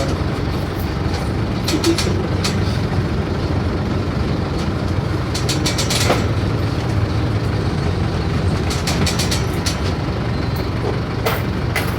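Mercedes-Benz OF-1418 bus's diesel engine running with a steady low rumble, with short bursts of rattling clicks about two seconds in, around six seconds, around nine seconds and near the end.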